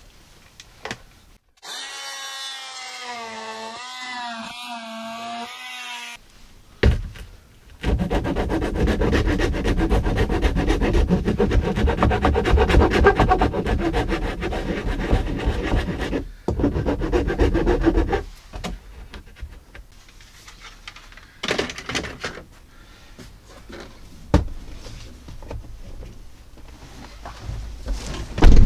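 Oscillating multi-tool cutting into a plastic parcel shelf. It starts with a few seconds of whining with a wavering pitch, then after a short pause gives about ten seconds of loud buzzing cutting. After that come quieter handling clicks and knocks, with a sharp loud knock near the end.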